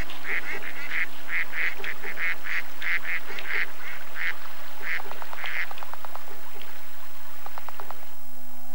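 Mallards quacking in a fast run of repeated calls that thin out after about five seconds, followed by a few short clicking rattles. Music comes in near the end.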